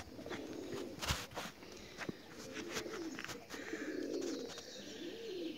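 Caged pigeons cooing, a run of low repeated coos, with scattered light clicks and a sharper click about a second in.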